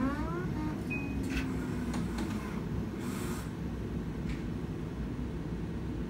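Steady low hum of X-ray room equipment, with a short rising whine at the very start and a brief hiss about three seconds in.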